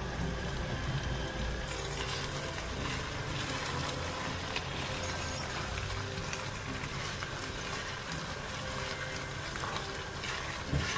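Thick pasta and potatoes simmering steadily in a hot pan while a silicone spatula stirs through them, with a few faint soft clicks and scrapes.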